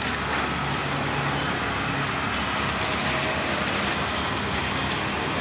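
Busy street ambience: steady traffic and engine noise with no single event standing out.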